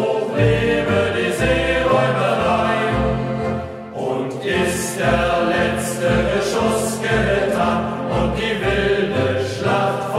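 Youth choir singing a German sea song in unison over a steady rhythmic bass accompaniment.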